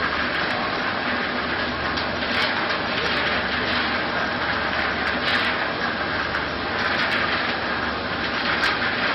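Flour-coated peanuts tumbling in a rotating stainless steel coating pan: a steady, dense rustling hiss with a few small ticks, over a low steady hum from the pan's drive.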